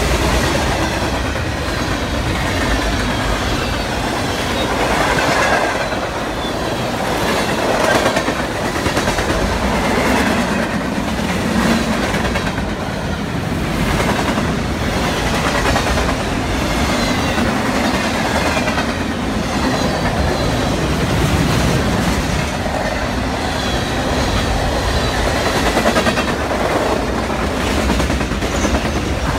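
CN freight train cars passing at full speed: a loud, steady rumble with the clatter of steel wheels over the rail joints.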